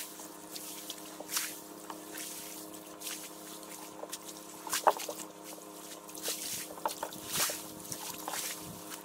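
Water lapping and splashing against a small fishing boat at the shore, in swells every second or two, the biggest about five seconds in. Under it runs a steady motor hum.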